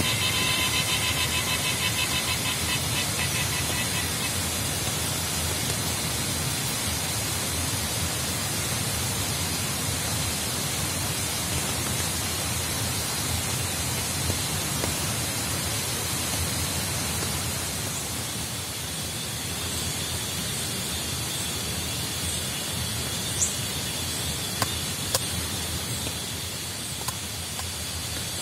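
Steady rain falling on tropical forest foliage at night. A rapid pulsing trill fades out over the first few seconds, and a few sharp ticks come near the end.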